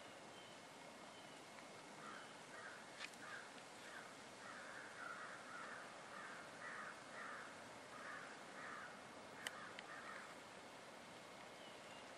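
A bird calling over and over in a long series of short, faint calls, starting about two seconds in and stopping near the end. Two sharp clicks cut through, the second, near the end, the loudest sound.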